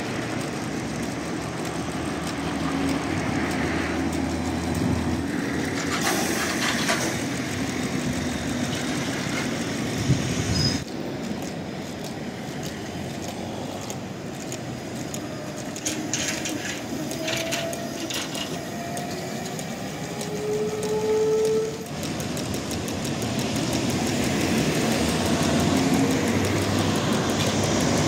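Electric trolleybuses running past amid street traffic, their traction motors giving a rising whine as they pull away. The sound changes abruptly twice, about a third and three quarters of the way through.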